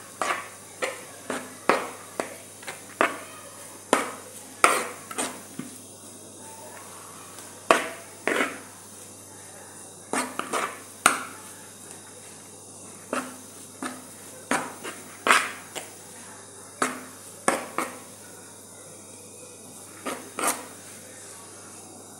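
Dishes and utensils clinking: irregular sharp knocks, one or two a second, each with a brief ring, broken by short pauses.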